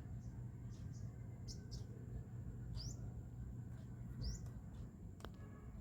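A small bird chirping: short, high, rising chirps about every second and a half, over a low steady hum. A single sharp click about five seconds in.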